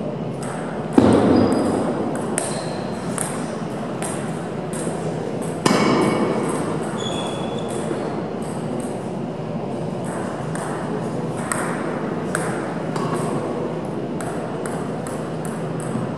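Plastic table tennis balls clicking off bats and tables in a hall, irregular sharp ticks from this and neighbouring tables, with the hall's echo. Two louder bangs stand out, one about a second in and one near six seconds.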